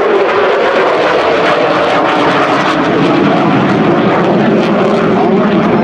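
Loud, steady jet noise from an F-35A Lightning II's single Pratt & Whitney F135 turbofan as the fighter flies overhead.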